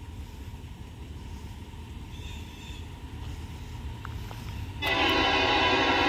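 A Norfolk Southern freight locomotive's air horn starts suddenly about five seconds in, a loud, steady chord of several tones, over a low background rumble.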